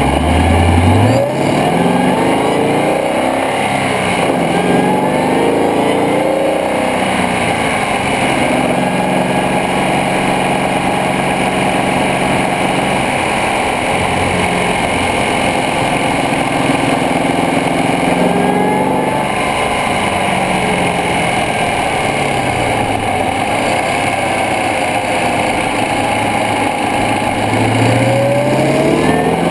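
Shelby GT500's supercharged 5.4-litre V8, heard close up in the engine bay, running and being revved several times. The pitch rises and falls at the start, again midway and near the end, and holds steady in between.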